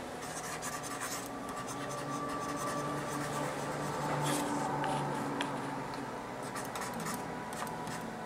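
Faint scratching and rubbing of a stylus moving across a drawing tablet in quick strokes as a signature is written.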